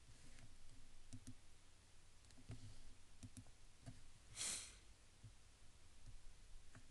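Near silence with a few faint computer mouse clicks and one short hiss about four and a half seconds in.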